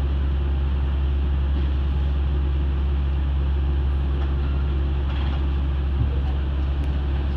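Okinawa Urban Monorail (Yui Rail) train running along its track, heard from inside the car: a steady strong low hum with an even rushing noise from the rubber-tyred straddle-beam running gear.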